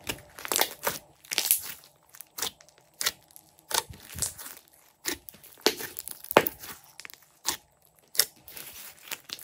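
Glossy slime being stretched, squeezed and kneaded by hand, giving irregular sharp wet clicks and pops.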